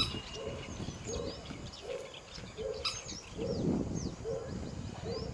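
Wetland bird chorus: many short high chirps and quick slurred whistles from small birds, over a low note repeated about three times every two seconds.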